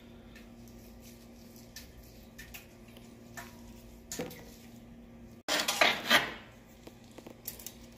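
Scattered small clicks and rattles of crumbly calcium and sediment scale from the bottom of a water heater tank being handled in a gloved hand. A louder rattling scrape comes about five and a half seconds in.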